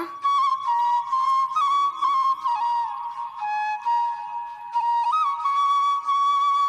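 Background flute music: a slow melody of long held notes that step up and down, in short phrases with brief breaks between them.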